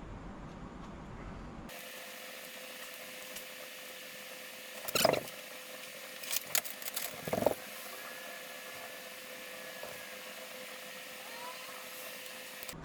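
A few sharp clicks and taps from handling laptop parts during disassembly, the loudest about five seconds in and a small cluster of them a second or two later, over a steady hiss with a faint hum.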